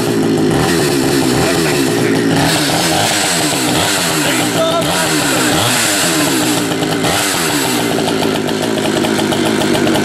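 Two-stroke chainsaw engine running, its speed wavering up and down.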